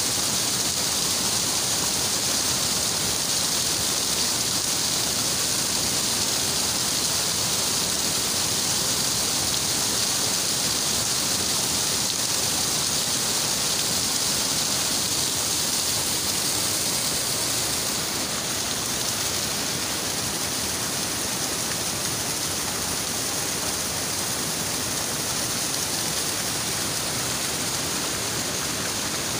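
Small waterfall splashing onto rocks into a stream: a steady rush of falling water that eases slightly a little past halfway.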